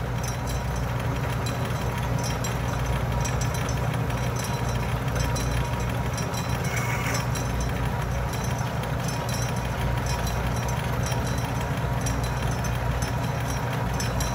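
Atlas metal lathe running steadily, spinning a four-jaw chuck holding hex stock, while a boring bar cuts inside the bore. It makes an even motor-and-drive hum.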